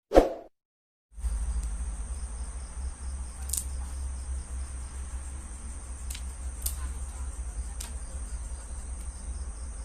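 Crickets chirping in a steady high trill, over a steady low rumble, with a few faint clicks. A short sound is heard at the very start, followed by about a second of silence before the crickets begin.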